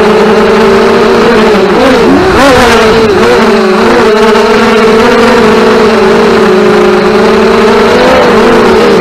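Racing quadcopter motors and propellers whining at high throttle, several steady tones that waver and dip with throttle changes about two to four seconds in, then hold steady.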